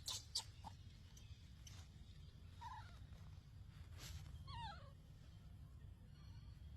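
Baby monkey giving two high squeaky cries: a short one a little under three seconds in, then a longer wavering cry that falls in pitch. A few faint clicks come near the start.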